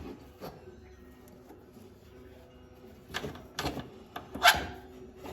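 Old brake cable and its housing being worked out of an ATV frame: a few sharp clicks and scrapes of metal and cable housing, the loudest a little past the middle.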